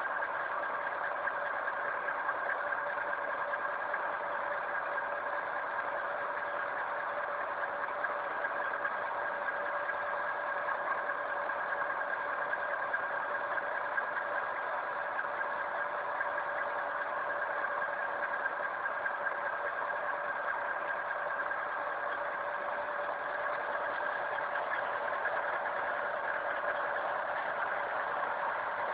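Electric pipe-cutting saw running steadily, a constant motor whine with two held tones over a grinding hiss, no change in speed.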